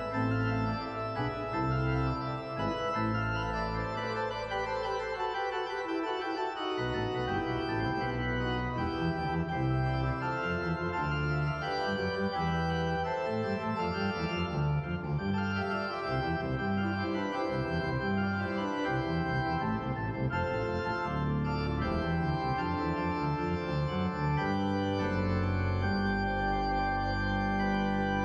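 Church organ playing the closing music after Mass: full held chords over deep bass notes, with the bass dropping out for a few seconds about four seconds in.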